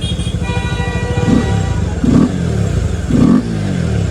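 Motorcycle engine idling with a steady low pulse, blipped three times about a second apart, each rev falling back to idle.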